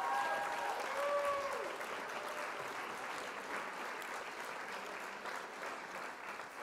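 Crowd applause with a few whistles and cheers in the first second or two, fading out gradually.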